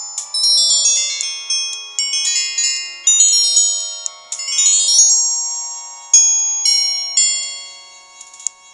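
Samsung SGH-C260 mobile phone ringtone: an electronic melody of struck, ringing notes that each die away, with a quick run of rising notes about four to five seconds in. It fades out near the end.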